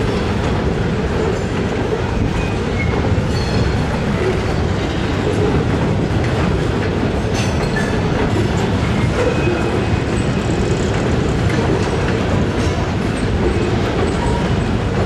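Freight train of loaded steel-coil cars rolling past: a steady rumble of wheels on rail with occasional clicks.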